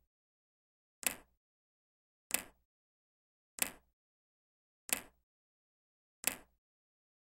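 Five short, sharp transition sound effects, evenly spaced about one and a third seconds apart, with dead silence between: an editing effect marking each change of picture in a photo montage.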